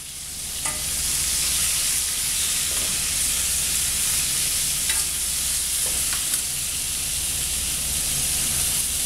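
Chopped potato, onion, celery and butternut squash sizzling steadily in hot oil in a pan, with a few light clicks of a utensil.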